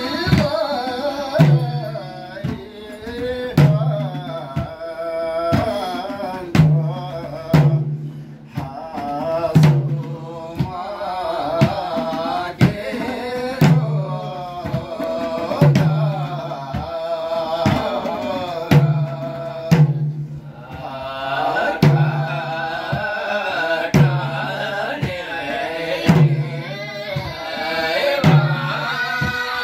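Several men singing a chant together over madal hand drums, a deep drum stroke about once a second with lighter slaps between. The singing breaks off briefly twice and picks up again.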